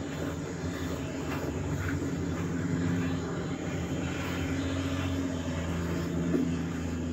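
A steady motor drone with several held low hum tones, rising slightly in level in the first few seconds.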